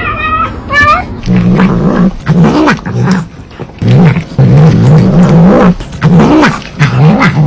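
Cat yowling: a short higher meow at the start, then long, low, warbling caterwauls that rise and fall over and over.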